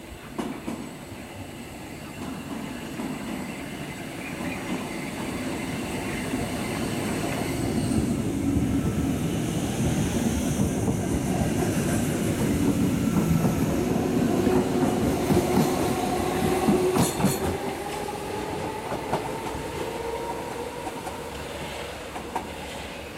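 Hamburg S-Bahn electric train running along the platform, its wheels clattering over the rail joints. The sound builds to a peak in the middle, with a quick run of clicks about two-thirds of the way in and a rising whine through the second half.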